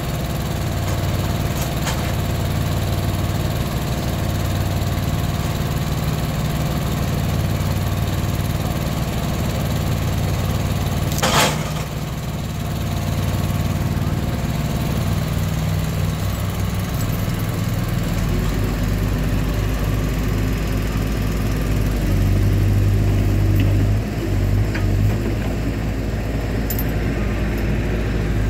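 An engine running steadily, changing speed about two-thirds of the way through and running harder for a couple of seconds soon after. A single sharp knock near the middle.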